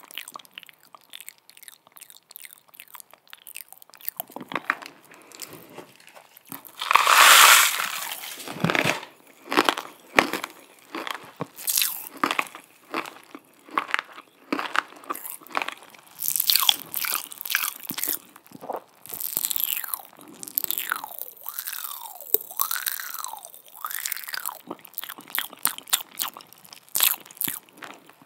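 Close-miked ASMR mouth sounds: a rapid run of wet lip smacks and tongue clicks, with fingertips at the lips. A longer hissing rush comes about seven seconds in, and a few rising and falling squeaks come around twenty seconds in.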